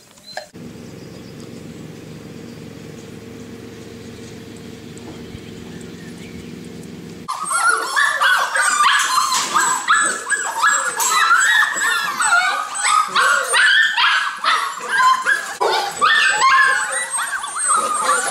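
A steady low hum for the first seven seconds or so, then a crowd of golden retriever puppies whimpering and yipping all at once in many overlapping high cries.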